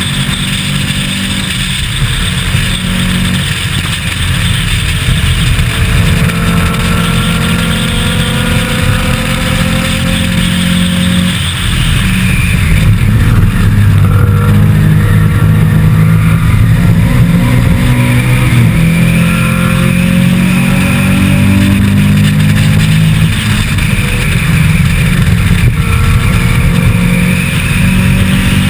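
Race car engine heard from the onboard camera, running hard under full throttle with its pitch climbing through the revs, a brief lift or gear change about twelve seconds in and another a little past twenty seconds.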